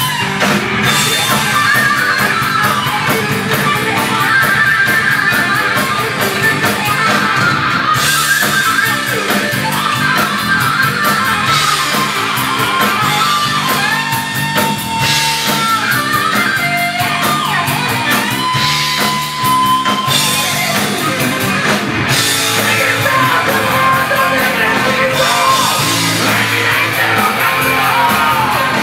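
Rock band playing live: electric guitar, bass and drum kit, with a male lead singer singing into a microphone.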